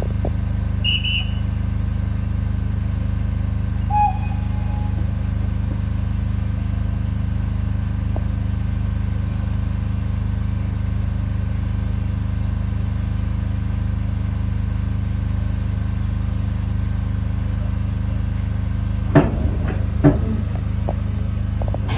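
Steady low rumble at a standing heritage train, with one short, high-pitched whistle blast about a second in, as the guard gives the green flag to start the train. A brief lower tone follows at about four seconds, and a few sharp knocks sound near the end.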